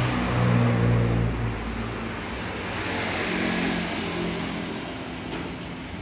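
Motor vehicle engine noise from passing traffic: a low engine hum, loudest in the first two seconds, easing off, then swelling again a little after the middle.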